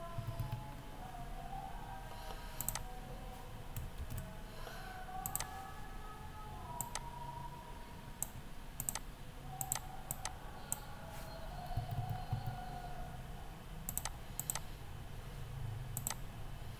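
Irregular single clicks of a computer mouse, about a dozen spread unevenly, over a faint low hum.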